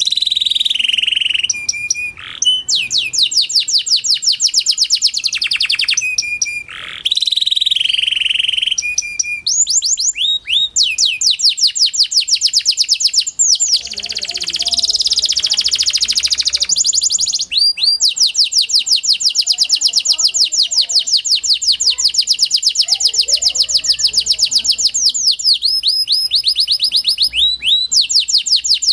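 Pied ("panda") domestic canary singing: long rolls of very fast repeated high notes, broken by short pauses, with one long unbroken trill in the second half.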